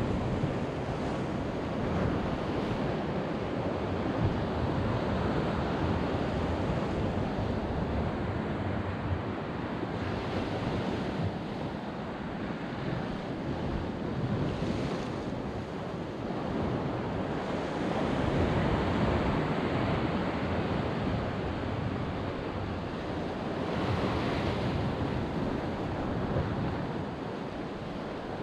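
Sea surf washing against rocks, with wind buffeting the microphone; the wash swells louder a few times and eases again.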